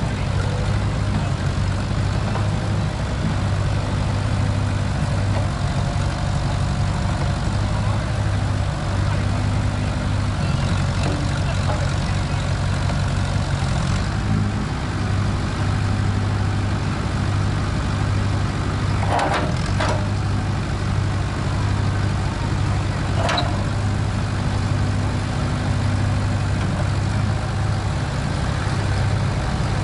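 Engine of an old Case tractor backhoe-loader running steadily while the backhoe digs, with a few brief sharp sounds about two-thirds of the way through.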